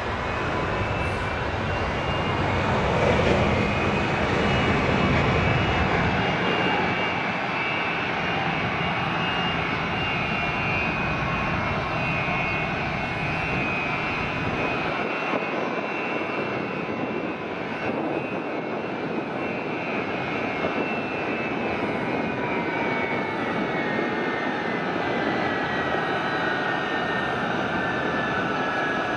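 Boeing C-17 Globemaster III's four Pratt & Whitney F117 turbofan engines running as the jet taxis: a steady, loud jet roar with a high whine on top. Over the last several seconds the whine falls steadily in pitch.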